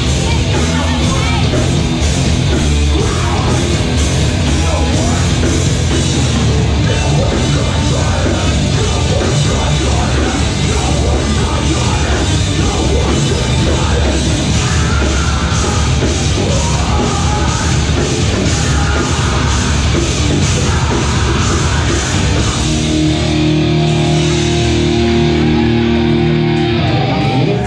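Metalcore band playing live at full volume: distorted guitars, bass and drums with shouted vocals. About 23 seconds in, the beat stops and a final chord rings on for a few seconds before cutting off.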